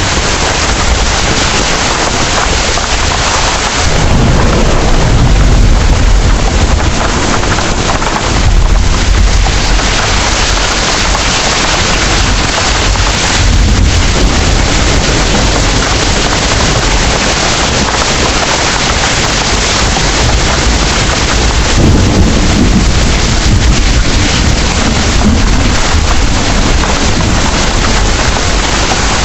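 Heavy rain pouring steadily, with deep rolls of thunder rumbling in several times and fading slowly.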